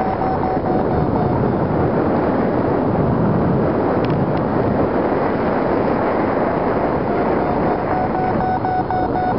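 Steady rush of wind over the microphone of a camera carried in flight under a paraglider. A thin, steady high tone sounds at the start and again from a couple of seconds before the end.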